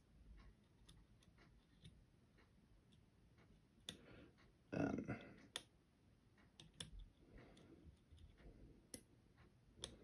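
Faint, scattered clicks of a lever-lock pick and tensioner working the levers of a five-lever padlock, with near silence between them. A short, louder sound comes about five seconds in.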